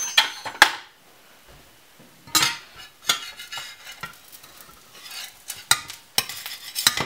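Slotted metal spatula scraping and clinking against a stainless steel frying pan in a series of short strokes as it works under a pancake. A faint sizzle of the pancake frying sits underneath.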